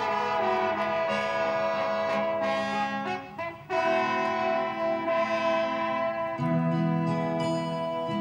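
Brass-led instrumental introduction of a Thai song playing from a vinyl record. Horns hold long notes in phrases, with a short break about three and a half seconds in and lower notes joining about six seconds in.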